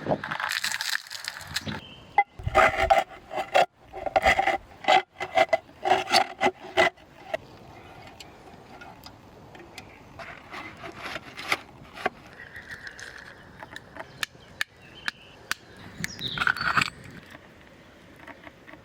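Rubbing and scraping with many sharp clicks and knocks. It is busiest from about two to seven seconds in, then turns to scattered clicks, with another short flurry near the end.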